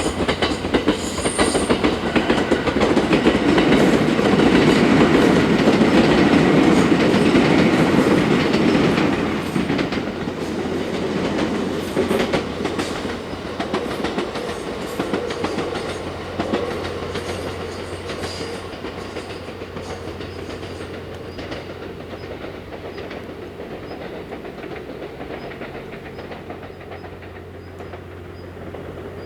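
JR West 289 series electric limited express train passing, its wheels clicking over the rail joints. It is loudest a few seconds in, then fades away slowly as it recedes.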